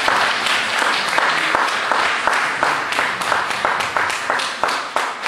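Audience applause in a hall that settles into steady rhythmic clapping in unison, about three claps a second, growing fainter near the end.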